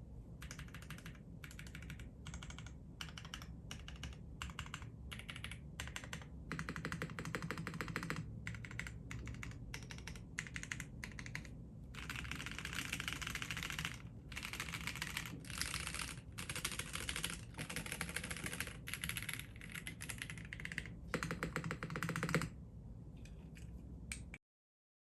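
Typing on a Mode Sonnet mechanical keyboard fitted with AEboard Naevy switches: quick runs of keystrokes in bursts, broken by short pauses. The sound cuts off suddenly shortly before the end.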